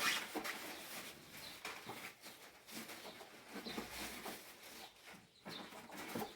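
Birds calling in short, high chirps a few times, over scattered clicks and knocks.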